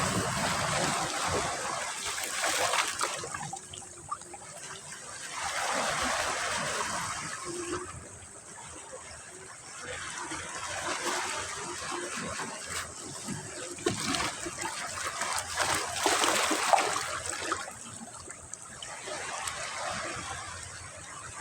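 Sea waves breaking and washing up a beach, the surf swelling and fading about every four to five seconds.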